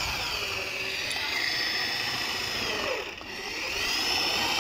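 Power drill running, its bit boring into the lock of a motorcycle's fuel-tank cap to drill out a cap that is stuck shut. The motor's whine sags about three seconds in as the bit bites, then picks back up.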